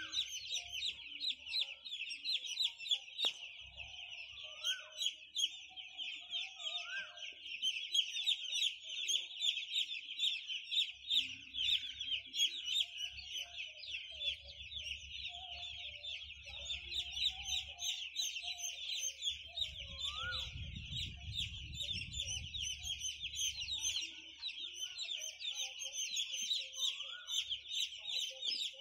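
Hundreds of day-old broiler chicks peeping all at once, a dense, unbroken high-pitched chorus of short chirps.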